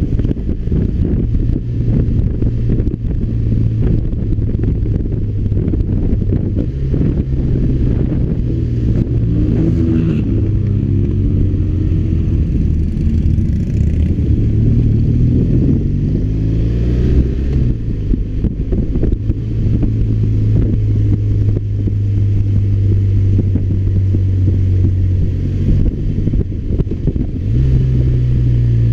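BMW R1200RT's flat-twin boxer engine running under way, a steady low hum. Its speed rises and falls in the middle, twice, and steps up near the end.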